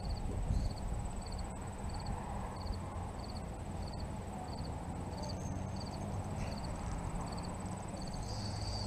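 Cricket chirping in a steady rhythm, about three short chirps every two seconds, each chirp a quick run of pulses.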